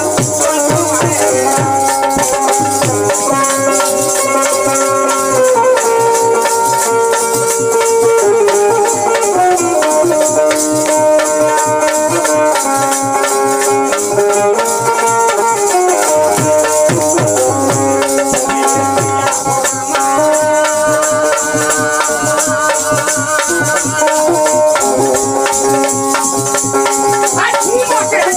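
Bhojpuri folk music: a melody of held notes stepping from pitch to pitch over a steady dholak beat, with continuous jingling from a hand-held wooden clapper fitted with metal jingles.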